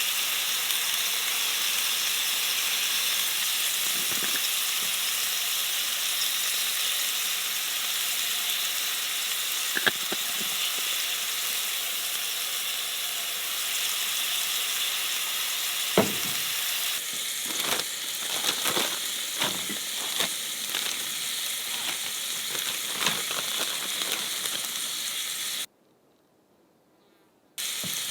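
Steak sizzling in olive oil in a hot pan, a steady frying hiss. From about halfway through come frequent sharp taps and clicks, and the sizzle drops out briefly near the end.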